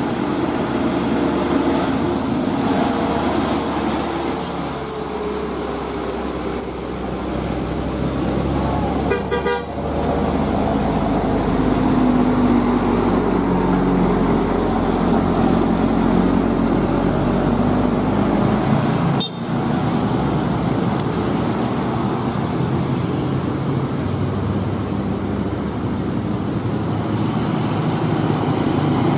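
Tour buses sounding Basuri 'telolet' horns: multi-note musical air horns playing tunes over diesel engine and road noise. The sound breaks off and changes abruptly twice, about ten and nineteen seconds in.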